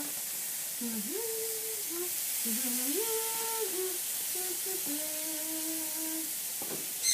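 A person humming a slow tune in several held, sliding phrases, over a steady hiss of food sizzling on the grill. A short click near the end.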